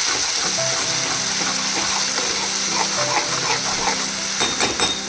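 Onion paste sizzling as it fries in hot refined oil in a kadai, a steady hiss, while a slotted spatula stirs and scrapes through it with a few clicks near the end. This is the start of frying the paste down (kosha).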